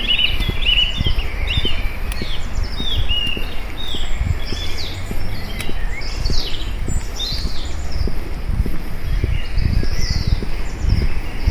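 Several birds chirping and singing, mostly short chirps that fall in pitch, with quick repeated notes near the start, over a continuous low rumble.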